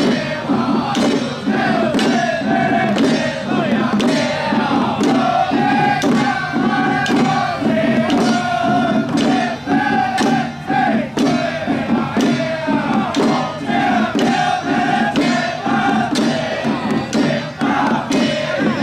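A large group of young men chanting and shouting in unison, loud and sustained, broken by frequent sharp percussive cracks.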